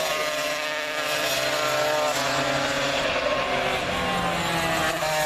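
Classic racing motorcycles running hard through a corner and away, several engines heard at once, their pitch climbing and dropping as they change gear.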